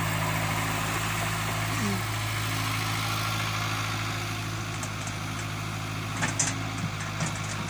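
Caterpillar E70 excavator's diesel engine idling steadily, with a few short sharp clicks near the end.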